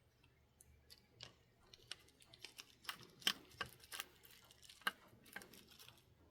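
Irregular small sharp clicks and taps from handling the parts of an HO-scale brass model locomotive with small tools, the loudest about three seconds in and again near five seconds.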